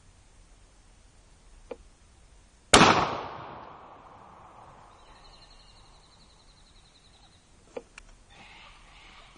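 A single 12-gauge shotgun shot, a target load fired from a double-barrel shotgun, about three seconds in: one sharp, loud report with a long tail that fades over a couple of seconds. A faint click comes before it and a sharper click several seconds after.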